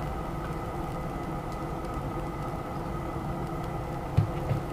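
A steady machine hum with several held tones over a low rumble, with two soft knocks shortly before the end.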